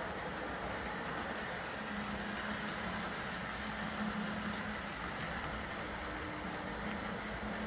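Lima Class 08 shunter OO gauge model locomotive running along the track, its small DC motor with a replacement armature giving a steady hum and whir. A steady hum comes in about two seconds in.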